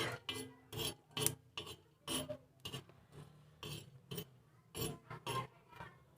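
A metal utensil scraping and stirring whole cloves and black peppercorns across a tawa griddle in uneven strokes, about two a second, as they are dry-roasted until they darken.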